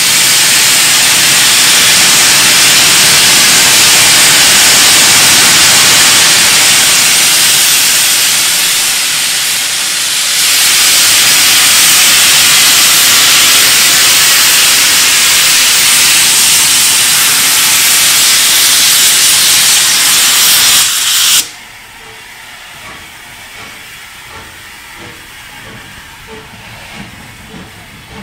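Steam locomotive LMS Jubilee 'Leander' blowing steam from its open cylinder drain cocks: a loud, steady hiss that stops abruptly about three-quarters of the way through, leaving a much quieter background with a few faint knocks near the end.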